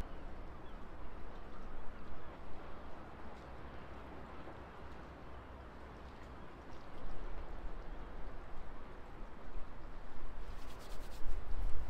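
Wind buffeting the microphone outdoors: a low, uneven rumble over a steady hiss, swelling twice. A quick run of faint clicks comes near the end.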